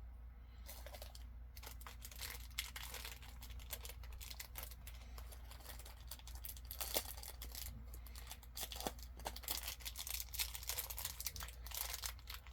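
Crinkly plastic packaging being handled and torn open, a dense run of irregular crackles with a few sharper clicks.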